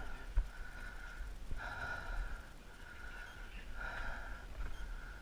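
A player breathing heavily behind a paintball mask, with slow breaths swelling about every two seconds over a steady hiss.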